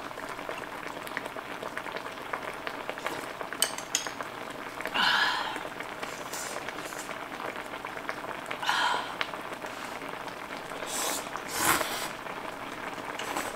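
Slurping noodles from a bowl, several slurps with the loudest near the end, and a few light clicks. Underneath is a steady bubbling hiss from a stew simmering in an electric skillet.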